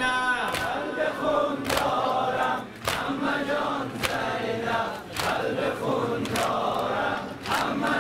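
A congregation of mourners beating their chests in unison (matam), one sharp slap about every second. Voices chant a Persian noha over the beats.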